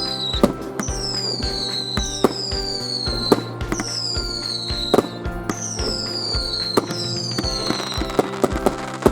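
Fireworks going off with sharp bangs and crackling over music. A high falling whistle repeats about every second and a half.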